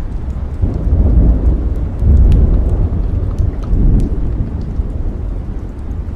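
A long roll of thunder rumbling low and heavy, swelling about a second in and easing off after about four seconds, over steady rain. Scattered sharp pops of a crackling wood fire sound through it.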